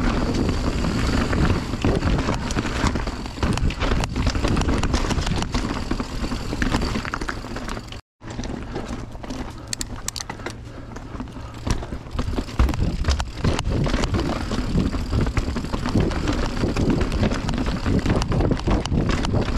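Mountain bike rolling over a dirt trail: a steady tyre and wind noise full of small knocks and rattles from the bike over rough ground. The sound cuts out for a moment about eight seconds in.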